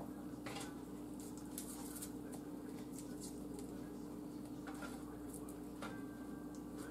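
Faint rustles and a few soft clicks of fingers pulling sliced onion rings apart and dropping them onto raw pork steaks in a roasting pan, over a steady low hum.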